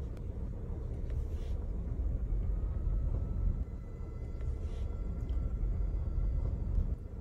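A steady low rumble, with a faint steady high-pitched tone coming in about two and a half seconds in.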